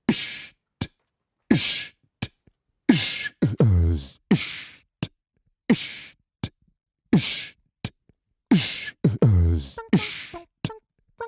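Beatboxing: a person making drum sounds with the mouth. Deep kick-drum thumps that drop quickly in pitch, hissing snare and hi-hat bursts and thin clicks come in a loose rhythm with short silences between hits, with a few short sung blips near the end.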